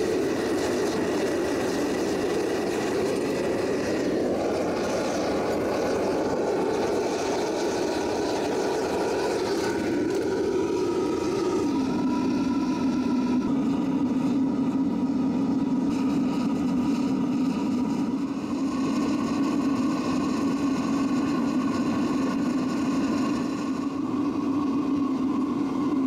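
Diesel-fired foundry furnace burner running, a steady roar of flame driven by its combustion-air blower. The pitch of the roar shifts a few times, dropping about twelve seconds in.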